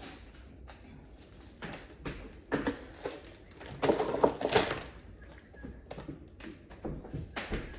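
Irregular knocks, taps and clatter of things being handled and set down, loudest in a cluster about four seconds in.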